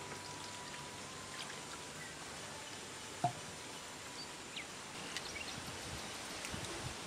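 Quiet outdoor ambience with small knocks and water sounds as water is scooped from a clay pot with a coconut-shell cup and hands dip into a clay bowl. One sharp knock about three seconds in, and a few faint high chirps later on.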